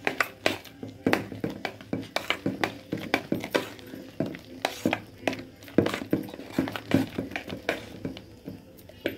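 A hand beating thick urad dal batter in a stainless steel bowl: wet slaps and squelches at an uneven pace of about two or three a second.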